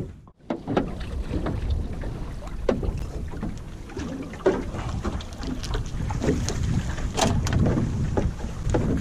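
Monofilament shrimp net being hauled by hand over the side of a small open fishing boat at sea: scattered short splashes and light knocks over a steady low rumble of wind on the microphone and water moving around the hull. The sound drops out briefly just after the start.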